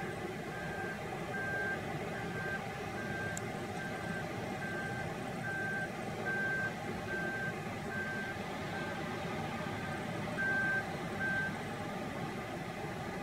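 Caterpillar 972M wheel loader's reversing alarm beeping evenly, a little faster than once a second, over its diesel engine running; the beeping stops near the end.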